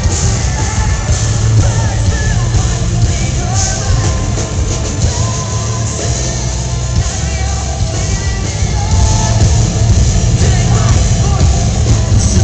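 Post-hardcore band playing live and loud with a singer over heavy bass, heard from within the crowd.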